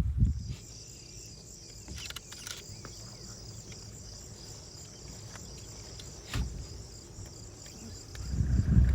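Insects trilling steadily in a high, rapidly pulsing chorus, with a few faint clicks about two seconds in and a single soft knock about six seconds in.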